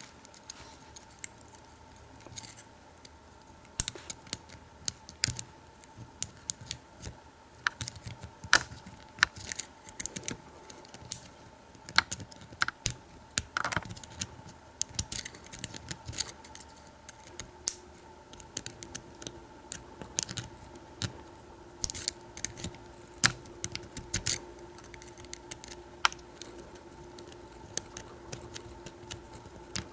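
Lock pick working the pins of a pin-tumbler padlock under tension: irregular small metallic clicks and ticks, several a second at times.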